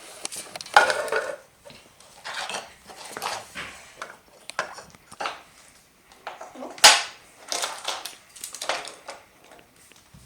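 BRIO wooden toy train parts being handled: irregular clicks, knocks and clattering of hard pieces against each other, with one sharper knock about seven seconds in.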